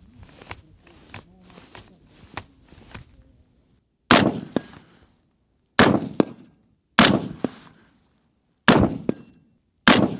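Five shots from an AR-style carbine fired prone off a bipod, spaced about one to one and a half seconds apart, several followed by a short metallic ring. Before the first shot come a few faint clicks and scrapes of the carbine and bipod being shifted.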